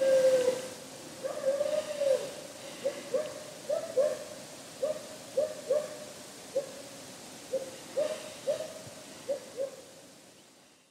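Barking owl calling: a run of short, falling, dog-like hoots, many in pairs, with a few longer drawn calls in the first two seconds. The calls fade out near the end.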